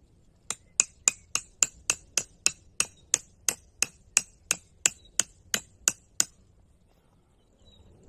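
Hammer blows, about nineteen evenly spaced strikes at roughly three a second, each a sharp metallic hit. They stop about six seconds in.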